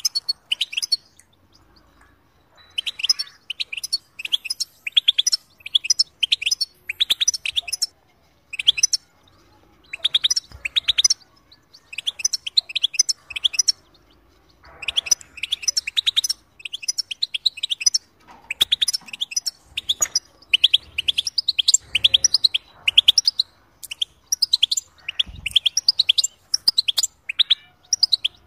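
European goldfinch singing: bursts of rapid, high twittering notes a second or two long, separated by short pauses, running more continuously in the second half.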